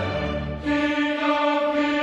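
Choir and string orchestra music; about half a second in, the ensemble settles on a single sustained chord held steady.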